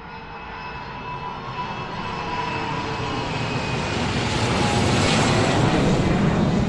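Intro sound effect: a rushing roar like a jet engine, swelling steadily louder throughout, with a few faint steady tones in it.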